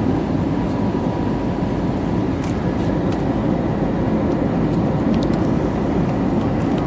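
Steady cabin noise of an airliner in flight: the engines and the airflow past the fuselage make an even, unbroken rush heard from inside the passenger cabin.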